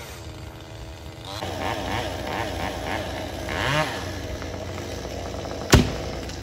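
Chainsaw running and revving up and down as it cuts through a pine trunk. A single sharp thud comes near the end, the cut section of trunk hitting the ground.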